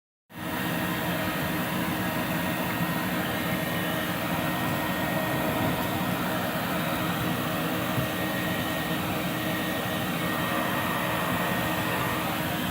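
Forced-air dryer running: a steady rush of blown air with a thin high whine and a low hum in it.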